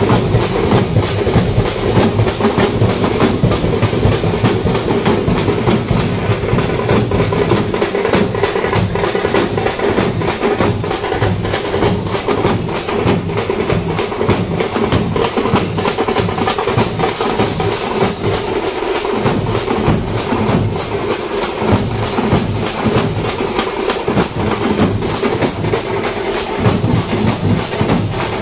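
A troupe of drummers beating large double-headed drums with sticks: a fast, dense, steady rhythm with no break.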